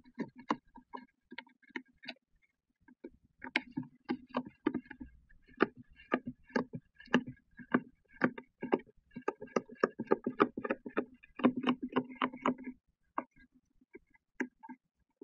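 Gloved hands pressing a Tesla Model S frunk's carpet liner down and tucking it under the rubber edge seal: a run of irregular short knocks and rubbing sounds, about two or three a second, busiest from about nine to thirteen seconds in, then sparser.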